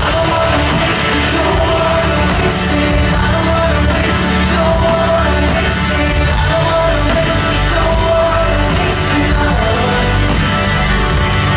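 Live pop-rock band playing loud with a lead vocal, heard from among the audience in a large concert hall.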